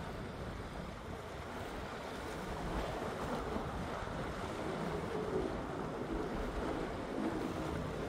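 Rough sea: waves washing with wind noise on the microphone, a steady rush.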